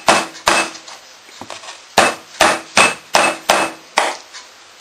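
Wooden rolling pin beating a block of butter on a wooden worktop, softening it for the fat layer of puff pastry: about eight blows, two at the start, then a pause of about a second, then six at a steady pace.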